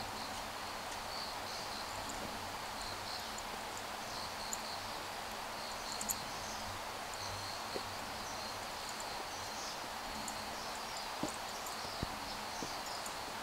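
Steady woodland ambience with insects buzzing in a high, flickering band, and a few light footstep taps on concrete steps.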